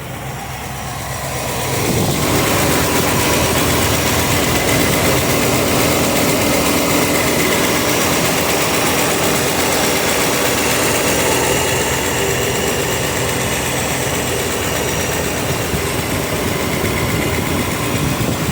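Chevrolet 305 small-block V8 idling with a ticking from the driver's side, which the owner suspects is an exhaust leak or a worn lifter. It gets louder about two seconds in.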